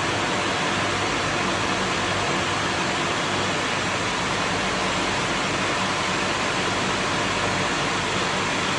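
Grundfos domestic water pump running: a steady rushing noise with a faint low hum underneath, unchanging throughout.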